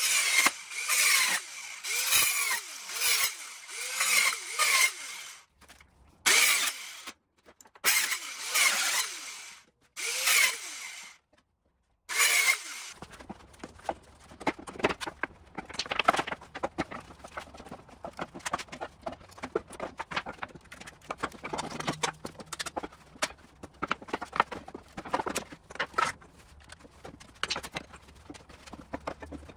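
A Dremel compact circular saw cutting through pallet slats in several bursts of a few seconds each, stopping and starting again. About 13 seconds in the saw stops, and a hammer knocks and pries at the cut pallet boards in irregular sharp knocks.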